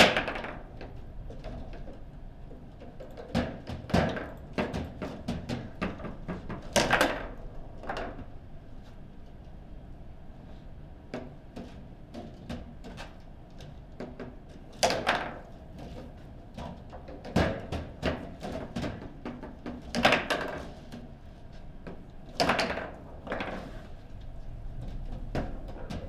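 Table football in play: irregular sharp knocks and clacks of the ball, the plastic figures and the rods, with a loud knock right at the start and a quieter stretch in the middle.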